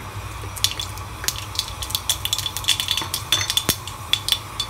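Mustard seeds spluttering in hot coconut oil in a metal kadai, giving irregular sharp pops and ticks, several a second. The seeds popping show the oil is hot enough for the tempering.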